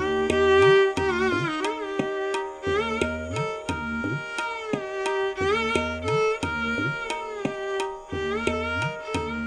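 Violin playing a slow song melody, with slides between notes and vibrato on held notes, over a steady tabla rhythm whose bass drum strokes bend upward in pitch.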